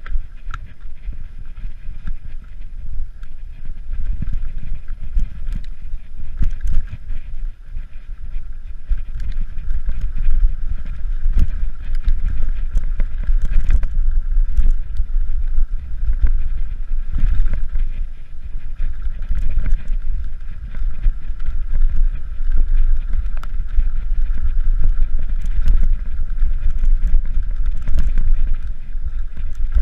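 Mountain bike ride over bare sandstone slickrock heard from a body-worn camera: heavy wind buffeting on the microphone and tyre rumble, with frequent irregular clicks and rattles from the bike over the rough rock.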